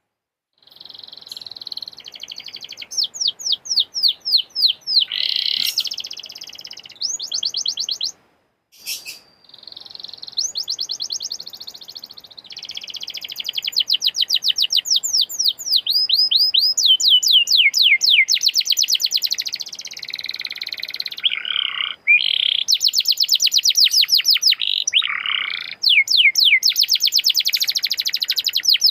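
Canary singing a long, high-pitched song of fast trills and rolling runs of repeated notes, broken by a short pause about eight seconds in.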